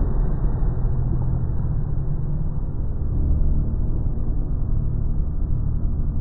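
A loud, steady low rumble with no voices.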